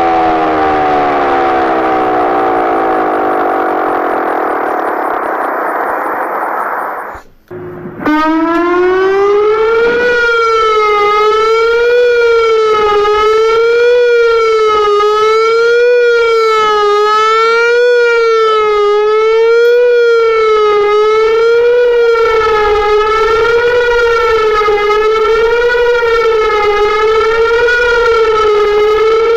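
Outdoor warning sirens. One winds down in falling pitch and cuts off abruptly about seven seconds in. A second then starts, rises, and settles into a wail that swings up and down in pitch about once every two seconds.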